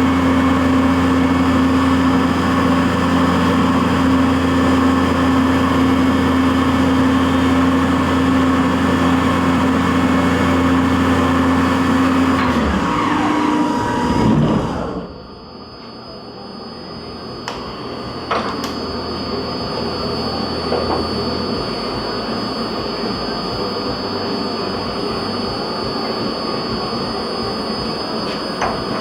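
CNC vertical milling machine running steadily with a low hum. About halfway through its spindle winds down with a falling whine, leaving a quieter machine hum with a faint high steady whine and a few clicks.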